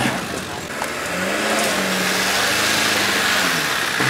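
Off-road 4x4 competition truck's engine revving under load as it climbs a steep dirt bank; the engine note rises about a second in, holds steady, then drops near the end.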